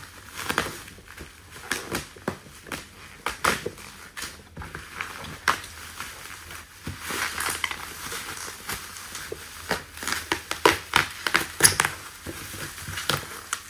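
Black plastic bubble wrap being pulled and crumpled off a cardboard box by hand: irregular crinkling and crackling, busier and louder near the end.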